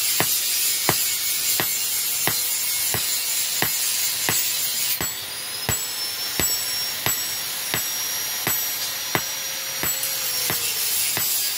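Hand hammer striking red-hot steel on a round steel anvil, about three even blows every two seconds, over a steady hiss. The steel is from an old diesel-engine bearing being forged into a badik blade.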